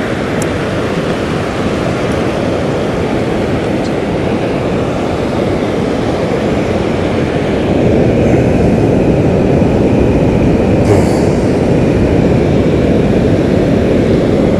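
Steady rushing noise of surf washing in the shallows with wind on the microphone, getting louder about halfway through.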